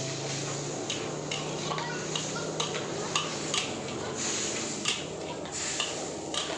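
Long metal spatula scraping and clanking against a wok while stir-frying flat rice noodles, in irregular knocks about one or two a second, over a steady frying sizzle.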